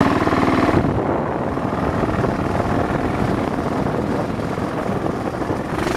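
Kawasaki KLR's single-cylinder engine running steadily as the motorcycle rides along, with wind buffeting the microphone.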